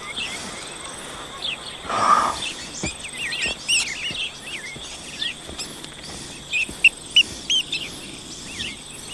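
Songbirds chirping and twittering in many short calls, over a faint steady high insect drone. A short breathy noise comes about two seconds in.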